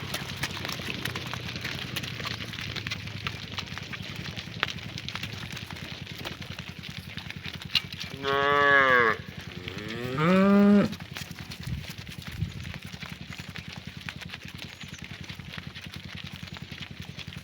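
A cow mooing twice in quick succession, the first call falling in pitch and the second rising, over a steady outdoor hiss.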